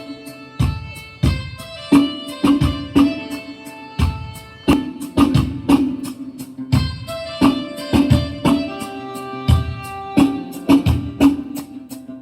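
Instrumental music: sharp drum-like strikes with pitched notes that ring on after each hit, in an uneven rhythm.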